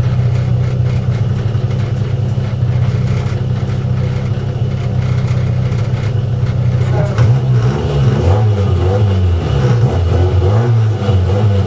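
Competition car's engine heard from inside the cabin, idling steadily at the start line, then revved up and down repeatedly from about seven seconds in as the driver blips the throttle waiting for the start.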